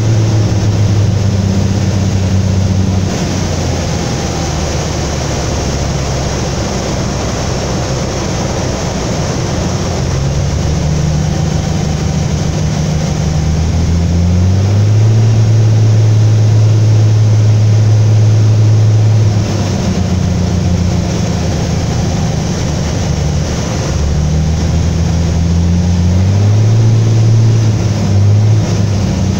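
Cessna U206F's six-cylinder piston engine and propeller heard from inside the cockpit on landing approach: a steady drone whose pitch steps down about three seconds in and again a little past midway, and rises in between and near the end as power is reduced and added.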